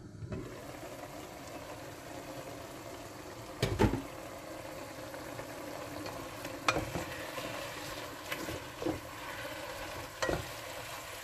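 Diced chicken sizzling in hot oil in a coated pan while a spatula stirs it, with several sharp knocks and clatters against the pan, the loudest about four seconds in.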